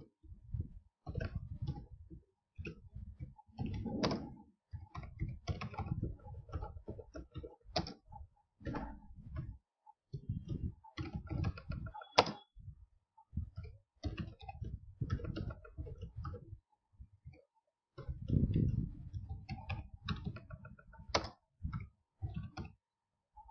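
Typing on a computer keyboard: irregular runs of keystrokes with short pauses between words, as an SQL statement is entered.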